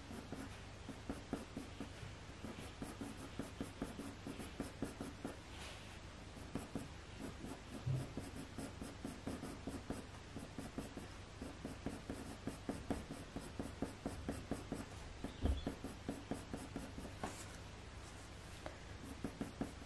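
Faber-Castell Polychromos coloured pencil scratching in quick, short, light strokes on hot-pressed watercolour paper, a few strokes a second, building up hedgehog fur.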